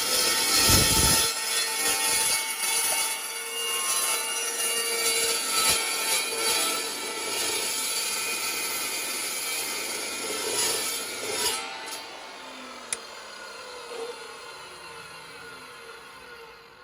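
Metal pipe being cut with a power saw: a steady rasping cut with high metallic ringing, fading away over the last few seconds, with a couple of sharp clicks near the end.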